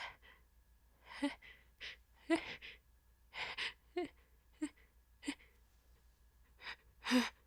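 A woman's short, hitching gasps and catching breaths as she fights back a sneeze, about ten of them at irregular intervals, the loudest near the end; the sneeze is held back and does not come.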